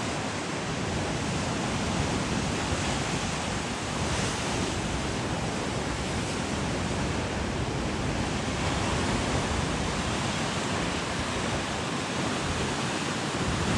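Ocean surf washing in a steady, even rush of noise, swelling only slightly in loudness.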